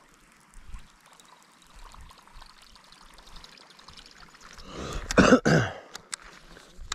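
A person clearing their throat twice in quick succession, close to the microphone, about five seconds in, followed by a single sharp click.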